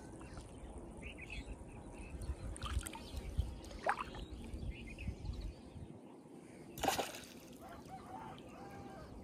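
Small water splashes and lapping from a fishing float bobbing on a pond as a fish tugs the line, with one short, sharp splash about seven seconds in.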